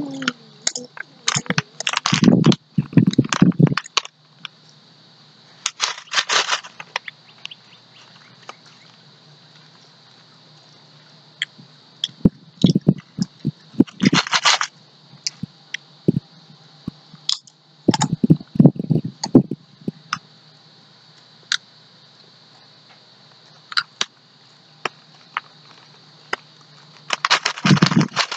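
Pringles potato chips crunching as they are bitten and chewed, in about five short crackly bursts with quieter gaps between them and scattered single clicks.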